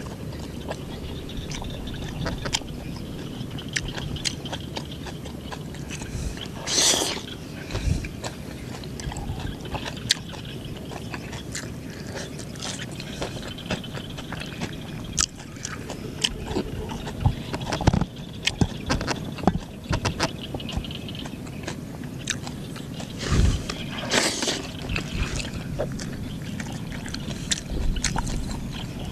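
Close-up eating sounds: a man chewing a Khmer rice crepe (banh chheav) with fresh greens, with many wet mouth clicks and smacks. Two brief breathy rushes stand out, one about seven seconds in and one a few seconds before the end.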